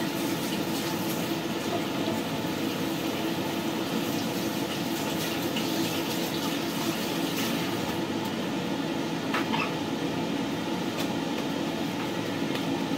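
Kitchen tap running steadily while hands are washed at the sink, with a few faint clicks.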